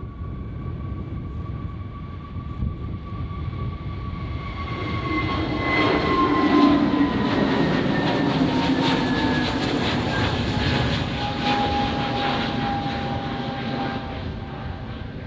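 Airliner taking off and passing by: a whine of steady engine tones that falls slowly in pitch as it goes past, over a rumble that swells about five seconds in and stays loud, with a crackle through the middle.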